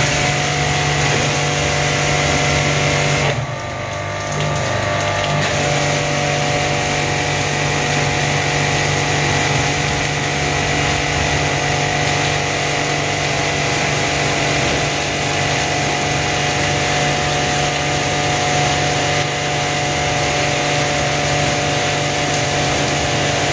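Pressure washer running: a steady pump-motor hum under the hiss of the water jet, used to wash dirt out of an AC outdoor unit. Its sound drops and changes for about two seconds, from a few seconds in, then comes back steady.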